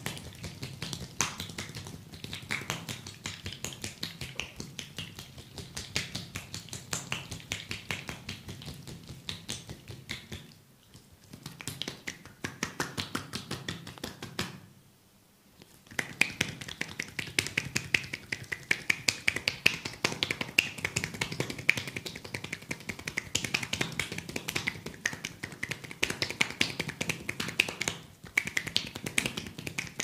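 A masseur's hands tapping and slapping quickly on oiled skin, a dense run of crisp clicks, with two short pauses about ten and fifteen seconds in.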